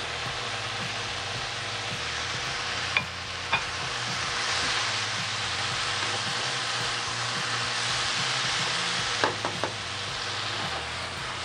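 Chicken, bell peppers and leeks sizzling in a hot wok as a spatula stirs them. A few sharp clicks of the spatula against the pan come about three seconds in and again near the end.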